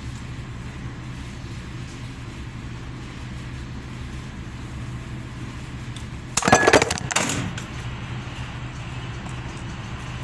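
A steady low hum throughout, with a loud clattering burst lasting about a second about six seconds in.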